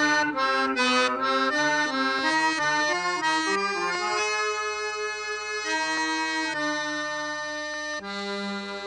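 Recorded music played through a DJ's sound system: a melody of held notes that change pitch every half second or so, with no drum beat.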